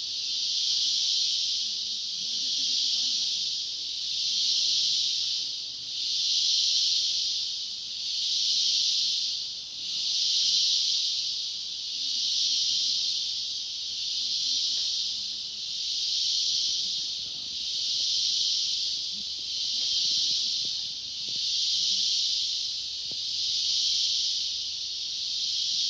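Tropical cicadas buzzing in a loud, high-pitched drone that swells and fades evenly about every two seconds.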